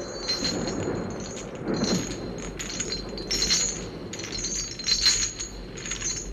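Metal leg-shackle chains clinking and rattling in repeated short bursts, roughly every half second, as if dragged along by a walking person.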